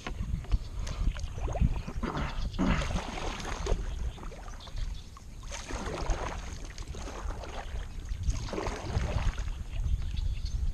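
Kayak paddle strokes: the blades dip and pull through the water in three splashing swishes a few seconds apart, over a steady low rumble.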